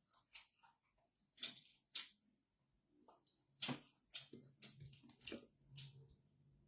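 Close-up eating sounds: irregular sharp mouth clicks and wet smacks of chewing, a few a second. A faint low hum comes in about halfway through.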